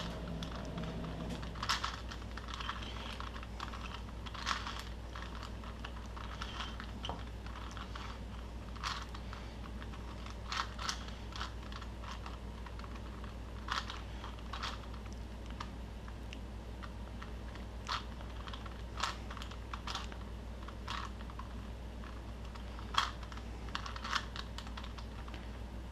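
Plastic Rubik's-type puzzle cube being handled and its layers turned: scattered sharp plastic clicks, one every second or two, over a steady low hum.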